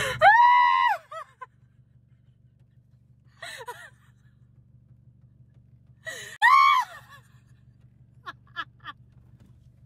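A woman's high-pitched wordless exclamations: a loud rising-and-falling squeal at the start and another about six seconds later, with a short breathy sound and a few brief chirps between, over the low hum of a car's idling engine.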